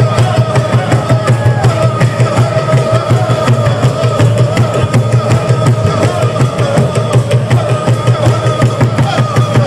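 Live music: fast, even drumming at about five beats a second under a steady held tone.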